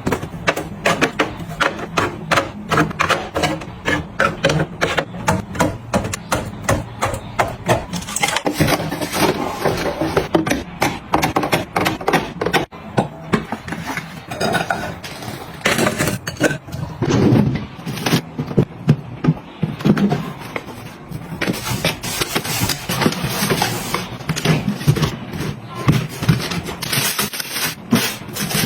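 Household items being handled and set down one after another: a fast run of small clicks, taps and knocks, several a second, with some scraping in between.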